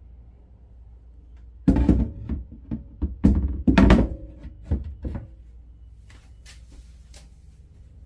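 Stone-look countertop sink cover being handled and set down over a stainless sink: a cluster of hard knocks and thunks for about three and a half seconds, then a few faint clicks.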